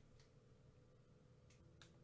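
Near silence, broken by a few faint light clicks as fingers handle two unwrapped hard ball lollipops, one click early on and two close together in the second half.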